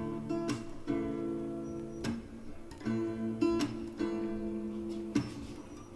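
Background music: acoustic guitar strumming chords, with no singing.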